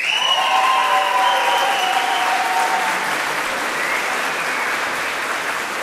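Audience applauding, with loud cheering over the first three seconds.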